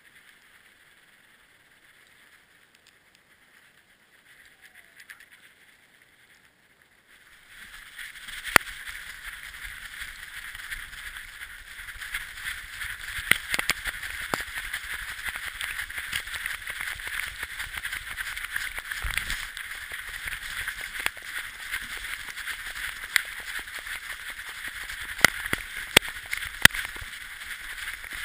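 A camera on a sled dog's harness, picking up the dog running: a steady scuffing, rubbing rush of gait and harness, with sharp clicks here and there. It starts about seven and a half seconds in, after a quiet stretch while the team stands.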